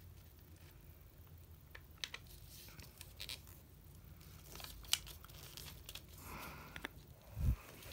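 Origami paper being folded and pressed flat by hand: faint scattered rustles and crisp ticks of paper, with a short rustle about six seconds in. A dull low thump comes near the end.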